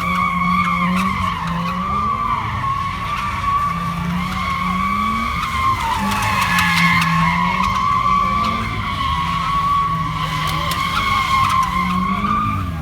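A car's tyres squealing steadily as they spin against the pavement in a burnout, with the engine revving up and down underneath.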